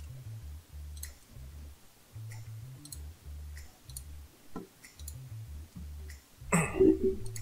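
Computer mouse clicking, scattered single clicks about once a second, over a low hum. Near the end there is a short voice sound.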